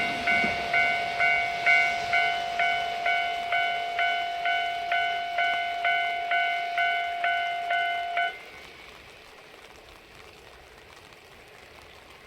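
Japanese railway level-crossing alarm ringing its repeated 'kan-kan' strike about twice a second, then cutting off suddenly about eight seconds in; the barrier sequence is ending.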